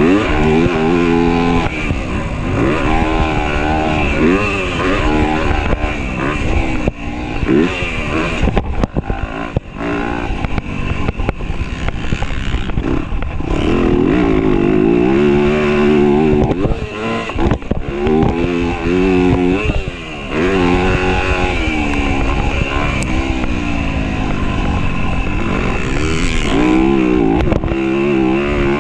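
Motocross dirt bike engine being ridden hard, heard close up from the rider's chest. It revs up and falls back over and over as the throttle is opened and closed and the gears change, with a few brief dips where the throttle is shut off.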